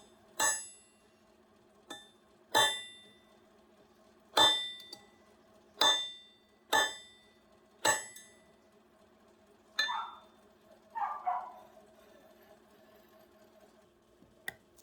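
Hard metal-on-metal strikes, about eight of them at uneven intervals over the first ten seconds, each ringing briefly. A couple of softer scraping knocks follow, then one small click near the end.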